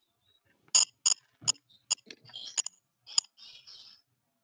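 Irregular sharp clicks and light clinks of small hard objects, about eight in three seconds, with short patches of soft rustling between them.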